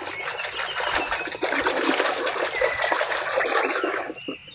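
Water splashing and rushing as mud is washed off plastic toy guns: a dense, crackly hiss that eases off about four seconds in.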